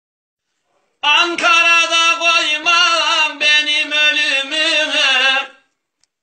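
A man singing unaccompanied in the Kırşehir bozlak lament (ağıt) style, in a strained 'yanık' (burning) voice: one long, wavering, ornamented phrase with no clear words. It starts about a second in and dies away shortly before the end.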